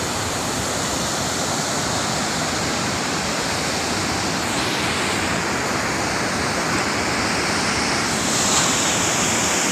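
Water rushing steadily from a burst dam pipeline and pouring down the hillside.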